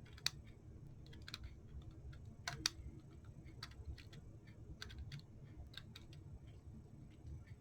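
Wall clock's movement ticking faintly, about once a second, now running the right way after having run backwards. A few louder clicks come in among the ticks.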